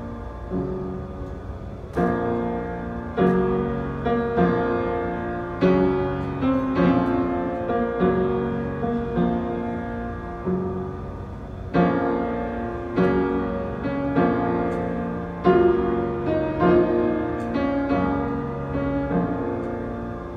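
Piano playing slow chords, each struck and left to ring, a new one roughly every second.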